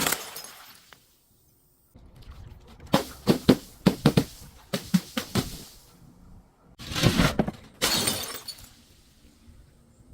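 Glass being smashed and crushed: a run of rapid sharp crunching cracks, then two louder shattering bursts about seven and eight seconds in, each ringing off briefly.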